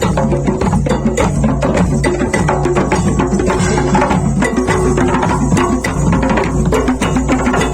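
Music with drums and percussion keeping a steady beat over a bass line.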